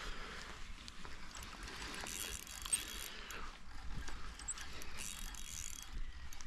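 Fishing reel clicking and ratcheting as line is worked against a hooked fish.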